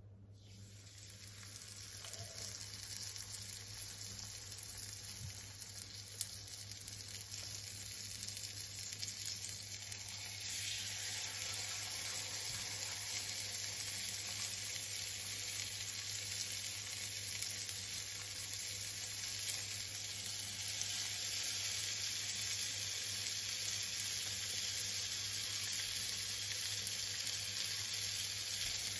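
Floured cusk fillets frying in hot oil in a cast-iron skillet: a steady sizzle that starts as the first fillet goes into the pan and grows louder about ten seconds in as more fillets are added.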